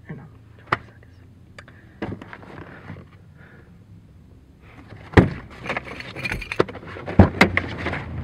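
Car door being unlatched and pushed open from the driver's seat: a run of sharp clicks and knocks with rustling that starts about five seconds in, after a few faint clicks earlier.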